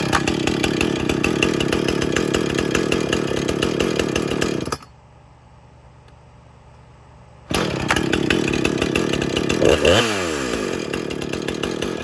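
Husqvarna 455 Rancher two-stroke chainsaw running steadily, then cutting off abruptly about five seconds in. After a short quiet gap it runs again from about seven and a half seconds, its pitch shifting briefly about ten seconds in.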